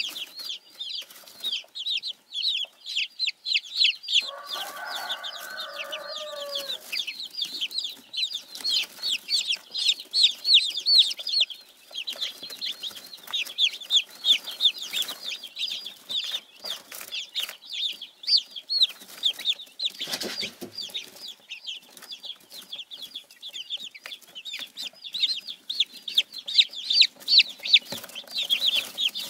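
Silkie chicks peeping: a continuous stream of short, high, rapid peeps from several chicks at once. About four seconds in, a lower-pitched drawn-out call lasts a couple of seconds and falls at its end.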